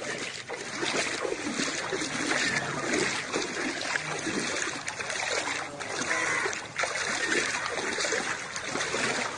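Water flowing and splashing steadily.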